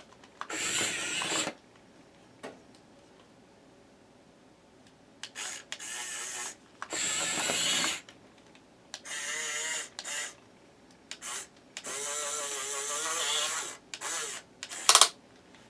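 Small electric gear motors of a HUINA 1510 RC toy excavator running in short bursts of whirring, about six times, as the arm digs into loose dirt. Under resistance the motor skips and the gears clatter: the digging arm has very little power.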